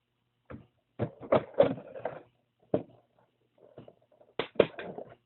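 Crunchy food being bitten and chewed, an irregular run of sharp crunches and clicks that come in clusters.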